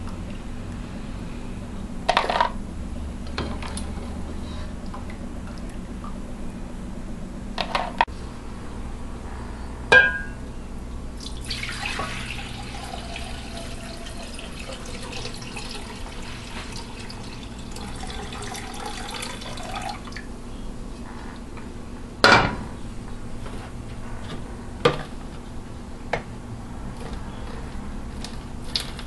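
Liquid poured from a metal pot into a glass measuring cup, a steady splashing pour lasting about eight seconds in the middle. Before and after it come several sharp clinks and knocks of a ladle and pots against kitchenware.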